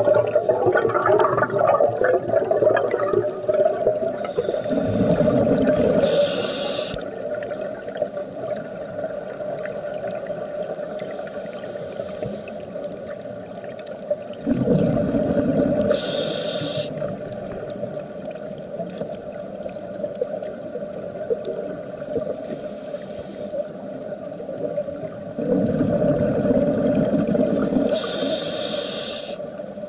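Scuba diver breathing through a regulator underwater: three slow breaths about ten seconds apart, each a low bubbling surge ending in a short hiss, over a steady hum.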